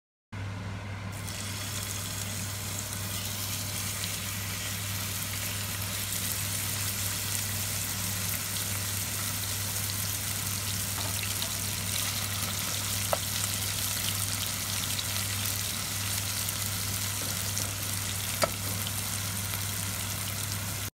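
Sliced meat frying in hot oil in a nonstick pot: a steady sizzle, with a low steady hum underneath and two sharp pops in the second half.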